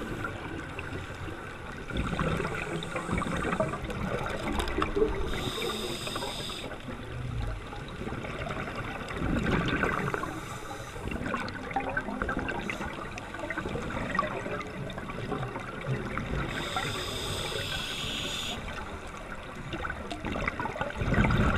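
A scuba diver's regulator breathing, heard underwater: exhaled air bubbling, with two brief hisses of inhaled air about eleven seconds apart.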